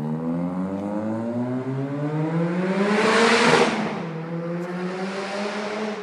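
Ford Sierra RS Cosworth's turbocharged four-cylinder engine accelerating hard past, its pitch rising for about three seconds. It is loudest as the car goes by, then holds a steadier note and fades away near the end.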